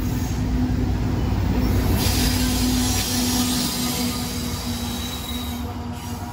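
CSX double-stack intermodal train rolling past close by, its well cars giving a steady low rumble. About two seconds in, a GE ET44AH locomotive running as distributed power in the middle of the train comes by and adds a louder hiss that eases off near the end.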